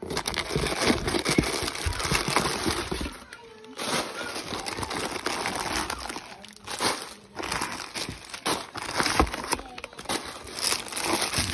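Plastic food sachets and packets crinkling and rustling as a hand shuffles them around inside a cardboard box, in fits and starts with two short lulls.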